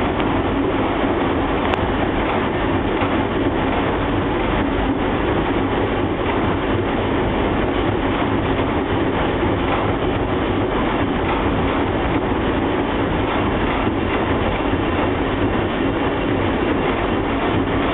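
IPSO 181 commercial washing machine on its spin cycle, the drum spinning at speed with a steady, even noise and no pauses.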